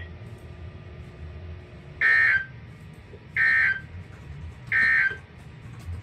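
Three short, loud bursts of a weather radio's digital EAS/SAME code, about a second and a half apart, high-pitched and buzzy: the end-of-message signal that closes an emergency alert broadcast.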